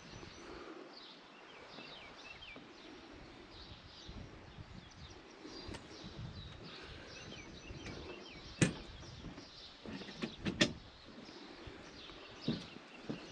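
Wooden plank deck of an old suspension bridge knocking and clunking under foot as it is walked across. There are a few sharp, irregular knocks in the second half, two of them close together. Faint birds chirp in the first half.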